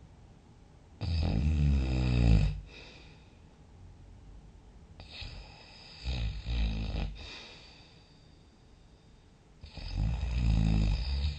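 Loud snoring: three long snores about four to five seconds apart, the middle one broken into two pulses.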